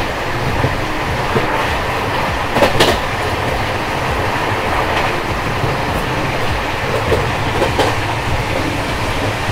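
Passenger train running along the track: a steady rumble of wheels on rail, with a couple of short clanks about three and eight seconds in as the coach rolls over rail joints.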